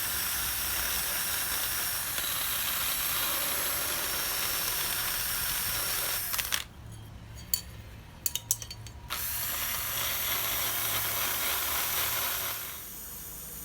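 Belt grinder grinding a forged YK30 steel scissor blade: a steady hiss of the abrasive belt on steel. It cuts out for a couple of seconds about halfway through, with a few clicks, then starts again and drops away near the end.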